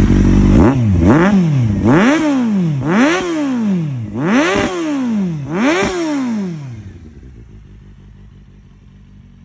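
2012 Kawasaki Z800's inline-four engine revved through an Akrapovic slip-on exhaust: a high held rev drops about half a second in, then five throttle blips, each rising and falling, about a second apart. It settles to a much quieter idle about seven seconds in.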